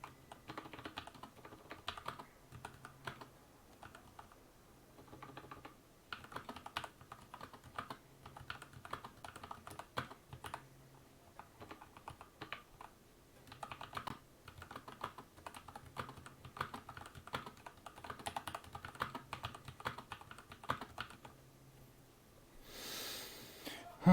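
Akko 3098 mechanical keyboard with stock prelubed Gateron Yellow linear switches being typed on, in runs of quick keystrokes broken by short pauses.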